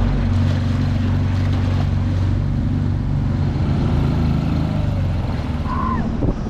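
Dinghy outboard motor running steadily under way, with water rushing and splashing past the hull.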